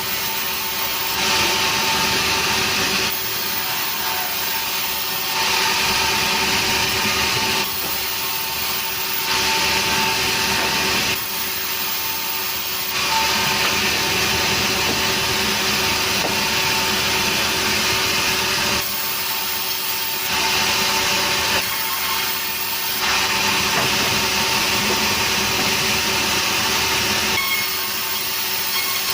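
Sawmill saw running steadily and cutting nering wood. Bouts of loud, hissing cutting a few seconds long alternate with shorter, quieter spells of the saw running between cuts.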